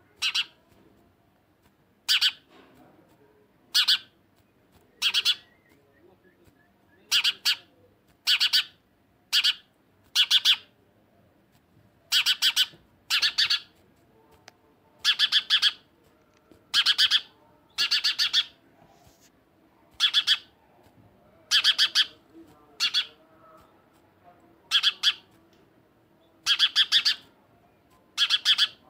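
House sparrow chirping: about twenty short, sharp chirps, roughly one every second or two, some coming in quick pairs.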